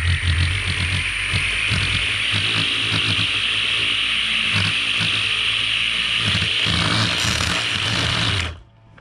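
String trimmer running steadily, its spinning line cutting grass, then switched off and cutting out suddenly near the end.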